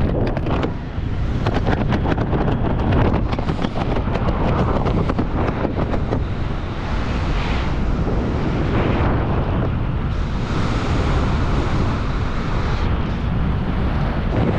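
Wind buffeting the camera's microphone while descending under an open parachute canopy: a steady, loud rushing with rough flutter.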